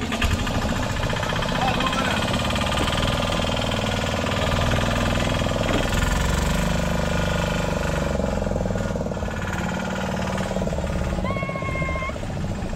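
Small boat's engine running steadily with a rapid chugging beat, heard from aboard. Near the end comes a short, high two-note whistle-like call.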